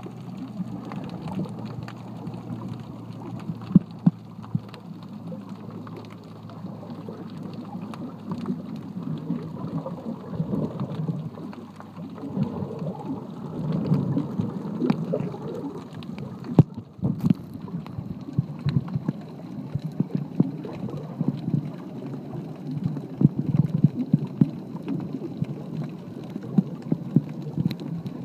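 Water noise picked up by a microphone under water: a muffled, crackling rush with many small clicks and pops that swells and fades.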